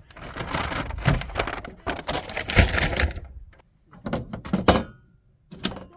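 Rustling and clattering as camping gear is handled and unpacked, then a few sharp knocks near the end.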